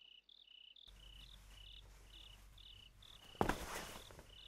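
Crickets chirping in a steady even rhythm, about three chirps a second, under a faint hiss that comes in a little under a second in. About three and a half seconds in there is a single sudden knock with a short noisy tail.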